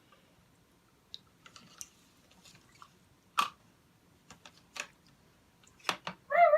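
Small plastic toy figures and playset parts being handled, giving scattered light clicks and taps, with a sharper knock about three and a half seconds in and two more near the end.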